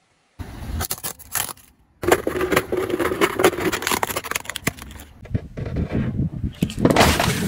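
A car tyre rolling slowly over objects on asphalt and crushing them, heard as a run of sharp cracks, crunches and scraping. The sound starts abruptly after a brief silence and breaks off and starts again at cuts, about two seconds in and near the end.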